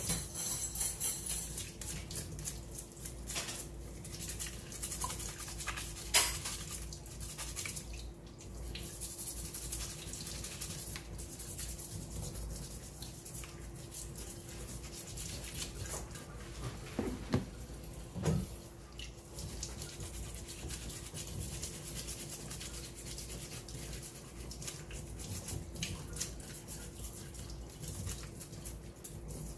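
A small stiff brush scrubbing a crab's shell under running tap water: quick, continuous rasping strokes. There is a sharp click about six seconds in and a couple of low knocks against the sink near the middle.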